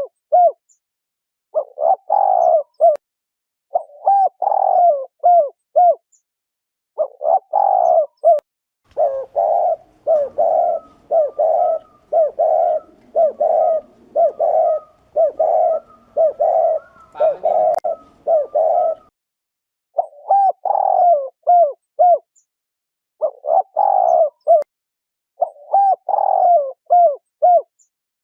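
Spotted dove giving its 'gù' bow-coo: short phrases of low, bubbling coos repeated every couple of seconds, with a faster unbroken run of coos through the middle.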